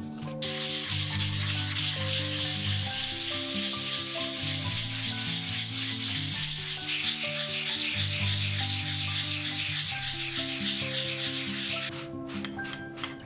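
Coarse sandpaper rubbed by hand in circles over a wooden cutting board: a steady scratchy hiss of rapid strokes that stops about a second before the end.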